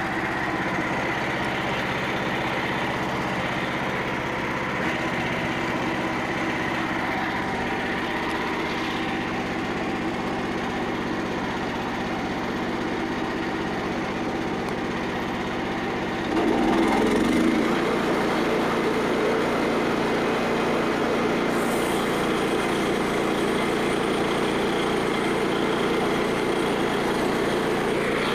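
Small gasoline engine of a portable band sawmill running steadily at high throttle during a cut. About 16 seconds in the sound shifts in pitch and gets a little louder.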